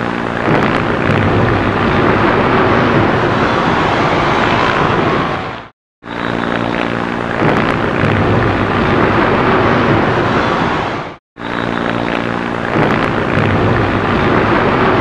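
A few seconds of camcorder sound from the South Tower, looped three times with brief cuts between passes. Each pass opens with about half a second of a steady engine drone, then a loud, sustained noise that the narrator presents as the initial blasts of the tower's collapse.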